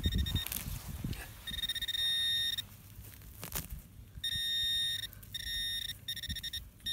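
A handheld metal-detecting pinpointer sounds a steady high beep that comes on and cuts off several times, in stretches of about half a second to a second, as it is pushed through a cut plug of turf and soil. Each beep means metal is within range of its tip as it closes in on a buried target. Soil and grass rustle as they are handled at the start.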